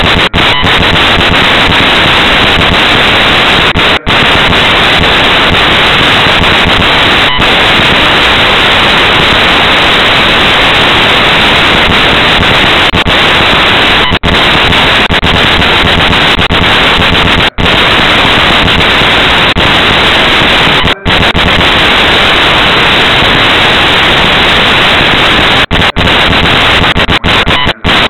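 Loud, steady hiss-like noise from a low-quality recorder's microphone that drowns out everything else, cutting out for a split second several times.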